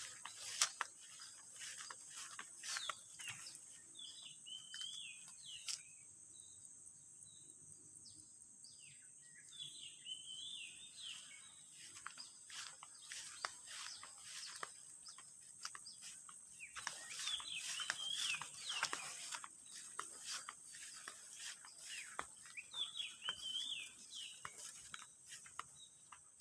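Faint outdoor ambience: a steady high-pitched insect drone, with short bursts of bird chirping every few seconds and scattered light clicks.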